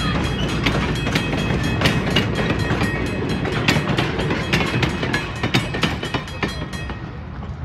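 Railcar wheels clattering over the rail joints as the last cars of a train, ending with a caboose, roll past, with irregular sharp clicks over a steady rumble. The sound fades near the end as the train moves away.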